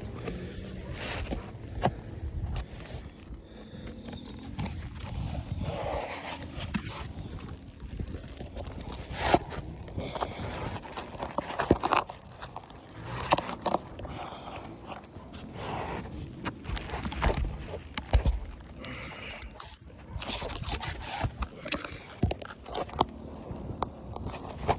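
Irregular scraping and scuffing of asphalt roof shingles being handled during a repair, with scattered sharp clicks and knocks.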